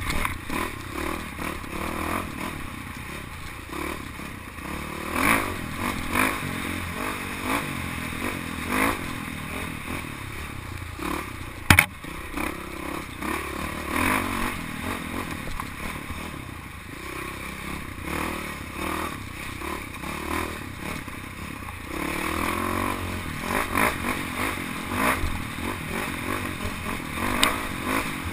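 Dirt bike engine running on a rough forest trail, the revs rising and falling as the rider works the throttle, with the rattle and clatter of the bike over bumps and one sharp, loud knock about twelve seconds in.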